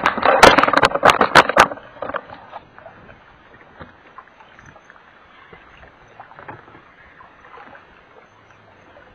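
Several sharp knocks and clatters of handling on a small fishing boat in the first two seconds, then faint open-water boat ambience with a few small ticks.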